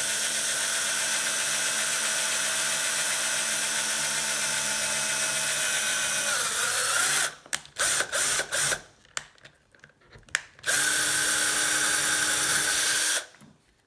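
Electric drill with a keyless chuck running steadily while drilling a hole in a metal quick-release skewer. Its pitch sags briefly about six and a half seconds in, followed by several short trigger blips. It then runs steadily again for a couple of seconds and stops near the end.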